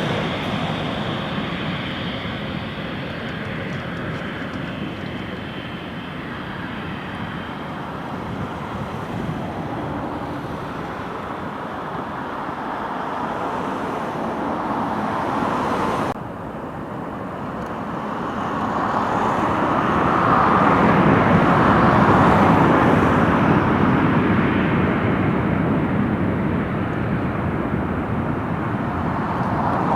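Jet airliner passing close by: its engine roar swells to a peak and slowly fades. Before that, a steadier, fainter roar of traffic and aircraft noise ends in an abrupt break about halfway through.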